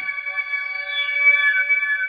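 Held electronic synthesizer chord, an intro jingle for the logo, swelling a little past the middle and starting to fade near the end.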